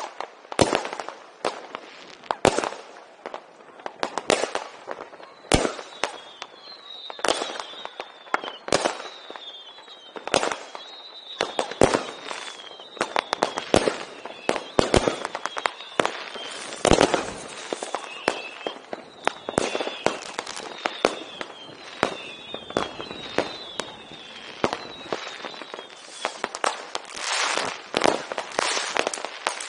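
Fireworks and firecrackers going off: a dense, irregular run of sharp bangs and crackles, with a string of short falling whistles through the middle.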